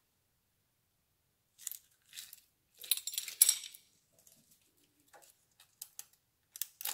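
Steel hand tools clinking against motorcycle valve gear: a cluster of sharp metallic clicks and a brief ringing rattle about three seconds in as the wrench and screwdriver come off the rocker arm's adjusting screw and locknut, then light ticks near the end as a feeler gauge is worked into the valve clearance.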